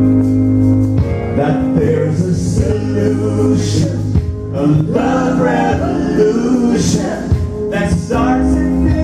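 Live gospel song: a man and a woman singing into microphones over sustained electric keyboard accompaniment.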